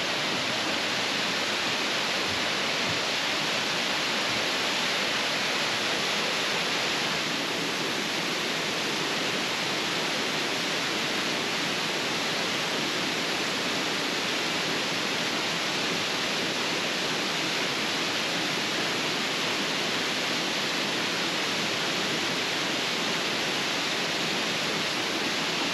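Waterfall rushing steadily as it cascades over rock ledges in a narrow gorge.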